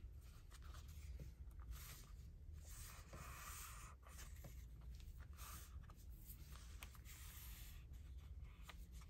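Faint rustling and sliding of paper sheets being handled, with a few light taps and clicks.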